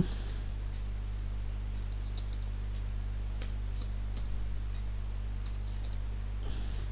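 Faint computer keyboard keystrokes, a few scattered taps at irregular intervals, over a steady low electrical hum.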